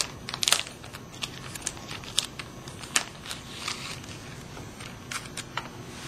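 Clear plastic bag crinkling in the hands, in short, irregular crackles and rustles.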